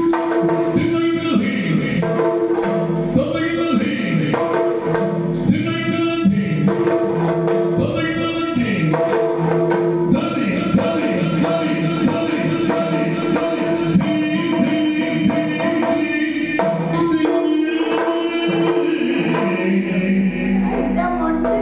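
Yakshagana stage music: maddale hand-drum strokes under a sung line, over a steady drone.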